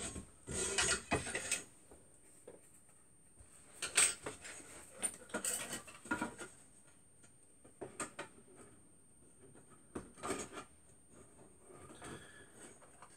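Clinks, knocks and scrapes of an aluminium extrusion rail being moved on a bench and small screws being fitted into a plastic end plate, in short scattered bursts with quiet gaps. The loudest handling comes in the first couple of seconds and again about four seconds in.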